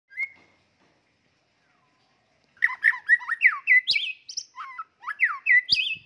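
White-rumped shama singing: one short whistle at the start, then, about two and a half seconds in, a fast run of loud whistled notes sliding up and down, which breaks briefly and picks up again.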